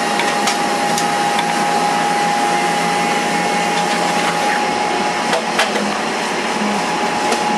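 Steady mechanical whirring inside a paratransit bus, with a constant whine and a few light clicks.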